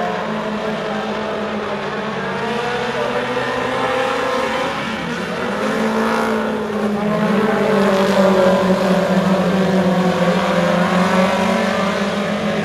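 Four-cylinder Super Stock race cars' engines running hard around a dirt oval, several engine notes overlapping and rising and falling in pitch as the cars accelerate and lift through the turns. The sound swells about halfway in as two cars pass side by side close by.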